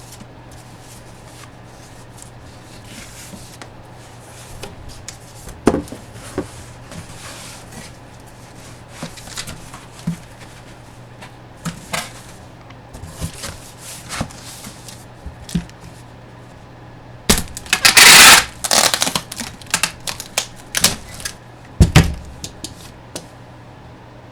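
Hands handling box-break packaging and photos on a table: scattered taps, clicks and light scrapes, with a loud crinkling rustle of packaging about three-quarters of the way through and a sharp knock shortly after, over a faint steady low hum.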